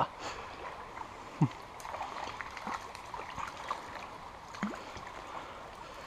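Small stream trickling steadily, with a few faint short knocks and one brief low falling sound about one and a half seconds in.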